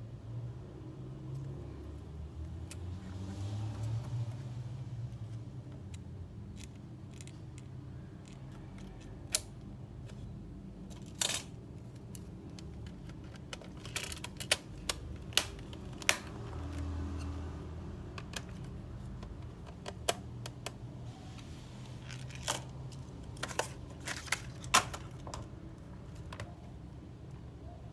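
Scattered light clicks and taps of small hard parts being handled, a few at a time with pauses between, over a low steady hum.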